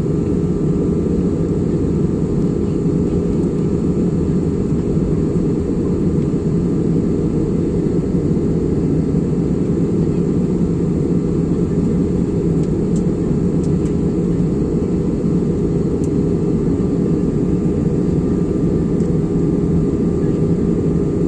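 Steady cabin noise of a jet airliner in cruise: an even, unbroken rumble of engines and airflow heard from inside the cabin, with a faint steady hum on top.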